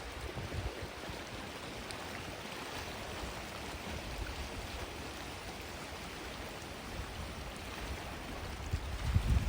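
Gentle sea waves washing onto a sandy beach, a steady hiss of surf. A louder low rumble swells near the end.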